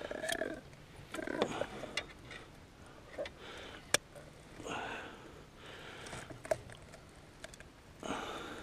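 Faint handling sounds of a catfish being unhooked in a mesh landing net: soft rustles and a few sharp clicks from the plastic fish-grip tool and hook.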